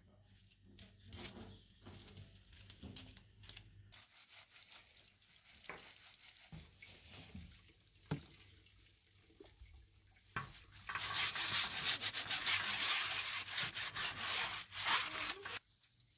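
Metal pot being scrubbed by hand under an outdoor hose, with water splashing. It is faint at first, then much louder for the last few seconds before cutting off suddenly.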